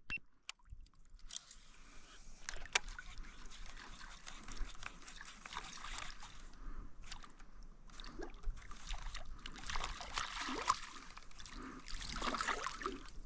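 Faint water trickling and sloshing against a kayak's hull, with scattered small clicks and splashes.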